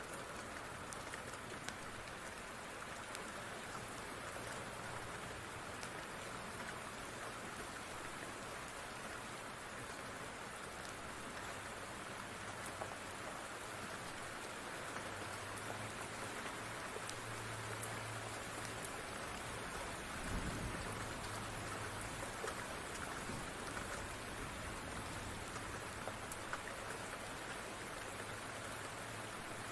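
Steady rain falling, an even hiss with scattered sharp pops and ticks from a crackling fire underneath. A brief low rumble rises about two-thirds of the way through.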